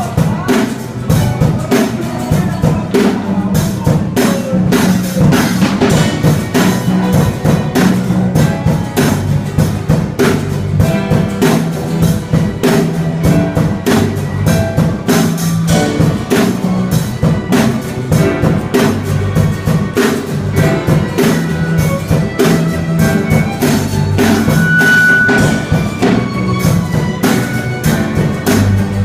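Music with a dense, steady drum beat over a bass line.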